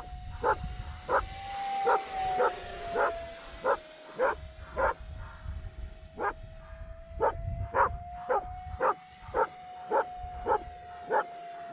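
A dog barking over and over at an even pace, about two barks a second. Under the barks runs the steady whine of the small electric ducted-fan RC jet, its pitch wavering slightly.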